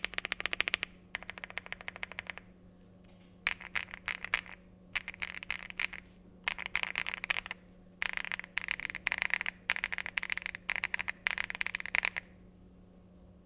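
Rainy75 mechanical keyboard with IKEYX Purple Bunny tactile switches, stock PBT doubleshot keycaps and a polypropylene plate, typed on fast in bursts of rapid keystrokes. The typing stops about twelve seconds in, leaving a steady low hum.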